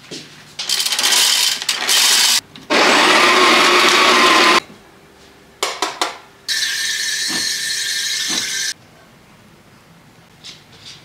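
Kitchen sounds: two loud whirring bursts of about two seconds each from a small electric motor, a few clicks, then about two seconds of water running from the sink tap.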